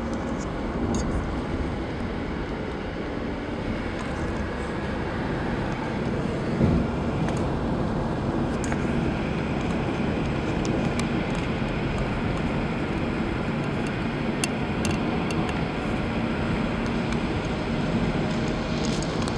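Steady road and engine noise inside a moving car's cabin, with a brief knock about seven seconds in.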